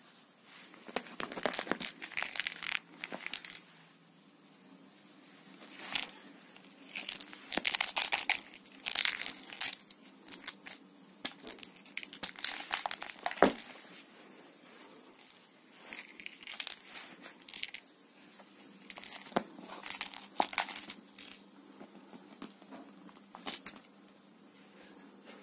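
A cat scrabbling and scratching on a fabric sofa cover while wrestling a fur toy mouse: irregular bouts of rustling and scratching with pauses between them, and one sharp knock about halfway through.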